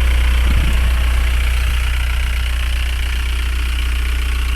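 Portable tyre inflator's air compressor running steadily while pumping up a car tyre, a constant low hum with a hiss above it.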